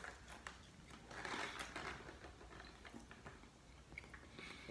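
Faint chewing of a mouthful of pepperoni bagel sandwich, with soft crunching of the bread, which is a little hard at the edge.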